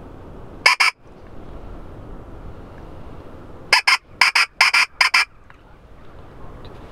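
Pheasant call blown by mouth to imitate a rooster pheasant's crow: two short, harsh notes about a second in, then a quicker run of about seven short notes a few seconds later.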